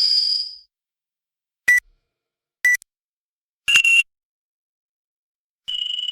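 Electronic beeps from a walk-through metal detector gate alarm: about five short single beeps of differing pitch, each separated by silence. The first, highest beep dies away within the first second, two brief lower beeps follow, and two mid-pitched beeps come around four and six seconds in.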